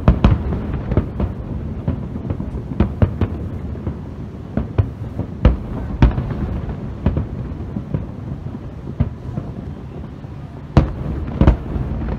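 Large aerial firework shells bursting in a rapid, irregular barrage of booms and cracks over a continuous low rumble, typical of a fireworks finale. The sharpest reports come at the start, about halfway through, and again near the end.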